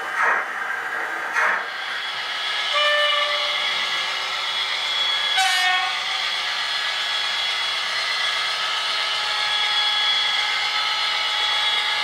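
Digital sound of Piko model locomotives from their small onboard speakers. Two steam exhaust chuffs from the BR 62 steam locomotive model come first. Then two short horn blasts, about two and a half seconds apart, and the steady running sound of the PKP SU46 diesel locomotive model's engine.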